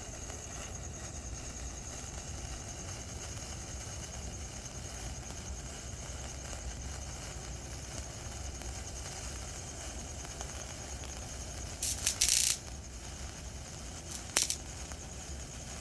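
TNT Neon wire sparkler burning with a steady fizzing crackle, with two short, louder bursts of noise near the end.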